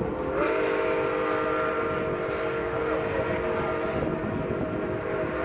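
Nickel Plate Road 765 steam locomotive's chime whistle held as one long multi-note blast, starting about half a second in, rising briefly into pitch and lasting about four and a half seconds, over the rumble of passenger cars rolling past on the rails.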